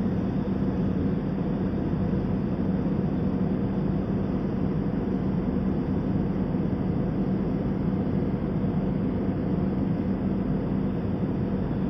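Airliner cabin noise in cruise: a steady, even roar of jet engines and airflow with a constant low hum.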